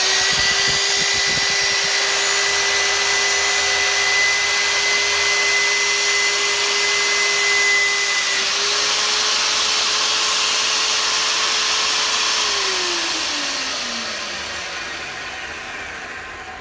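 Cayken SCY-42HD magnetic drill's motor running at steady speed while a 5 mm twist drill bit drills through 10 mm steel plate. About twelve seconds in the motor is switched off and its pitch falls as it winds down.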